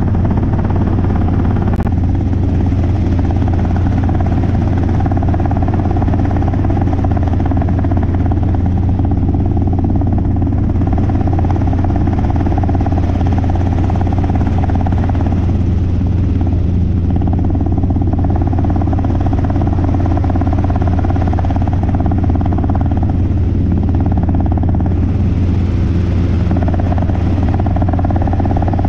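Robinson R22 helicopter in flight: its piston engine and rotors make a loud, steady drone with a strong low hum. A higher tone in the drone fades in and out a few times.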